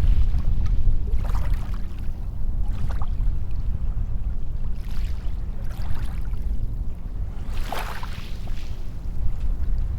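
Waves breaking and washing up a sandy beach over a steady low surf rumble, with several short swishes of water, the strongest about eight seconds in.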